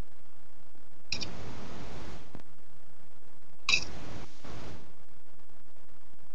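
A sharp click followed by about a second of rustling noise, twice: handling noise picked up by a microphone.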